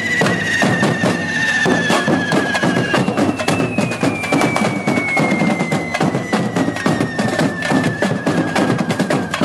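Correfoc drums beating over the hiss and crackle of hand-held fireworks spraying sparks. A shrill whistling tone runs through it, falling slowly in pitch, once for about three seconds and again for about six.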